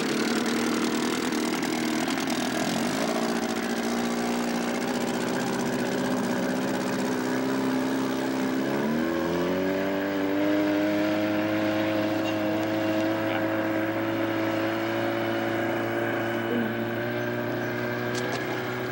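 Motorboat engine speeding up in two steps, about three seconds in and again about nine seconds in, then holding a steady higher pitch over a constant rush of wind and water.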